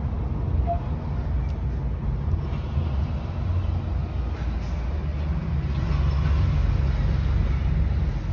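Truck's diesel engine and road noise heard inside the cab while driving, a steady low drone that gets a little louder about halfway through.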